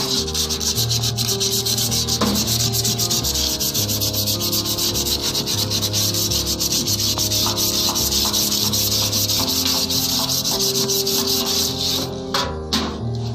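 Hand sanding or scrubbing of a welded metal dough-mixer bowl in quick, rhythmic back-and-forth strokes, rubbing off the weld marks and grinding residue.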